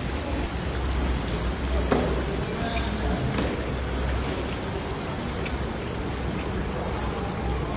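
Broth bubbling and sizzling around a heap of rice in a giant kazan of plov, over a steady low hum, with one sharp knock about two seconds in.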